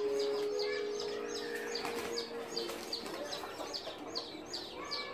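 A flock of hens calling, with a steady run of short, high, falling peeps about three times a second.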